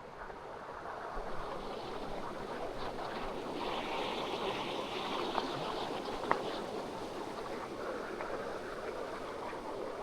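Steady rush of running water from a stream, growing louder over the first few seconds, with two short sharp clicks around the middle.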